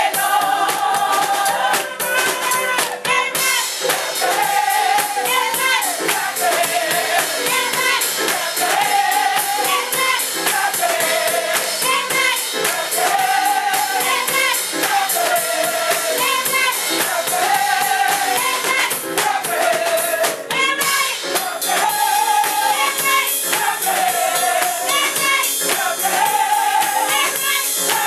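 Women's gospel choir singing a short phrase over and over, with handclaps and a steady percussion beat.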